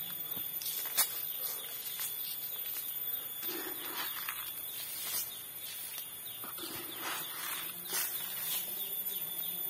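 Granular fertilizer (Meroke MKP mixed with Calnit) being scattered by hand onto damp leaf litter around a durian tree: light scattered ticks and rustles, over a steady drone of insects.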